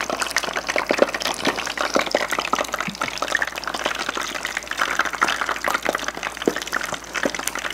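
Hot oil crackling and sputtering in a small tabletop deep fryer: a dense, steady run of irregular little pops.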